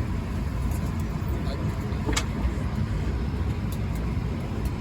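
Steady low hum of an Airbus A220-300's cabin at the gate, the aircraft's air-conditioning and ventilation running, with a brief click about two seconds in.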